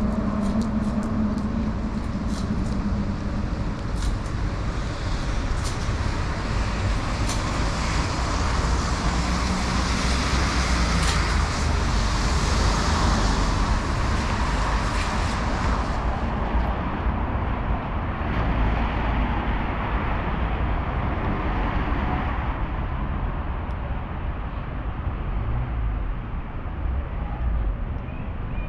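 City road traffic on a wet street: cars passing with tyre hiss over a steady low rumble, loudest from about eight to sixteen seconds in as a vehicle goes by close.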